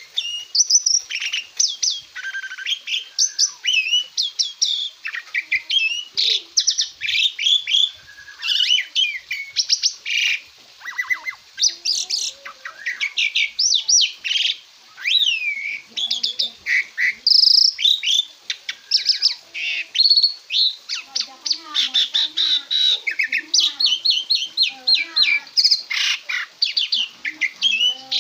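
Asian pied starling singing: a long, fast run of varied whistles and chirps in quick succession, broken by a few short pauses.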